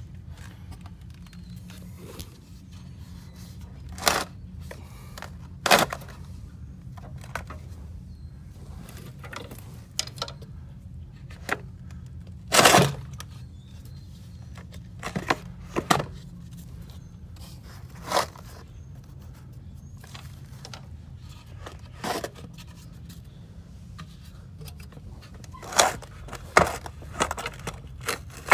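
Scattered knocks, clicks and short scrapes of tools and parts being handled, about a dozen over the stretch, with the loudest scrape about halfway through, over a steady low hum.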